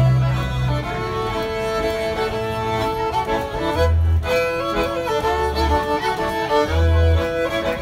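Fiddle and accordion playing a tune together, the fiddle carrying the melody over the accordion's short bass notes.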